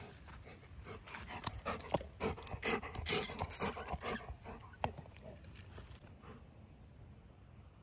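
Golden retriever puppy panting in quick, repeated breaths, which die away about five seconds in.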